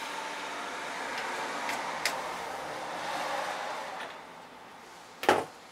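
Drill press running steadily, then going quieter about four seconds in, with a couple of light ticks along the way. Near the end comes one sharp metallic clank, the loudest sound.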